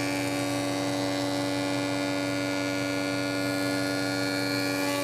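Jointer and dust collector running with a steady hum, the jointer's cutterhead planing a glued-up walnut and maple blank fed across it with push blocks, giving a steady high hiss over the hum.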